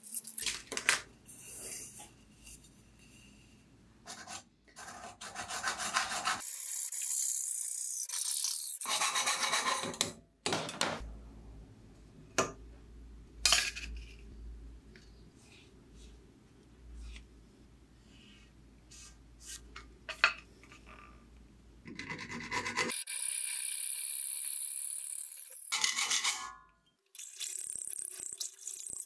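Workshop handling noises: sandpaper and paper rubbing and rustling against an aluminium tube, with scattered sharp clicks and taps, and stretches of steady rasping or scraping. Near the end a hand file rasps on metal clamped in a bench vise.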